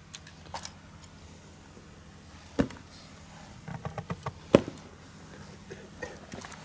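Footsteps and light knocks on dry dirt ground: a few scattered short knocks, the sharpest about two and a half and four and a half seconds in, with a small run of them just before the second.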